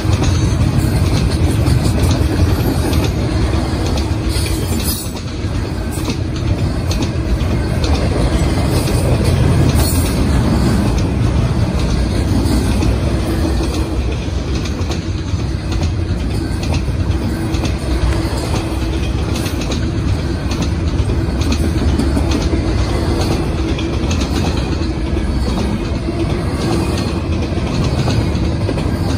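Double-stack intermodal well cars of a freight train rolling past: a steady, loud rumble of steel wheels on rail, with clicks as the wheels cross rail joints.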